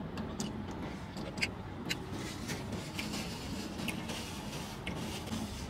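Chewing and small wet mouth clicks from a man eating a sauce-drenched chicken wing, over a steady low hum inside a car.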